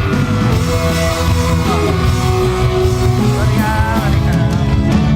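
Rock-style music with a held sung or instrumental melody over a steady, full band backing.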